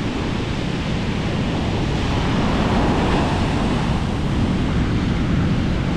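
Heavy storm-driven ocean surf rushing and breaking, with strong wind buffeting the microphone; a steady, dense noise that swells slightly midway.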